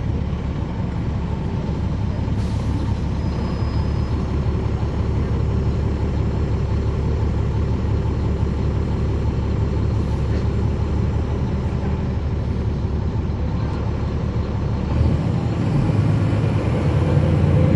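Caterpillar C13 straight-six diesel engine of a NABI 40-foot transit bus, heard on board from the rear seats, running steadily under way. About fifteen seconds in, the low engine note changes and grows louder.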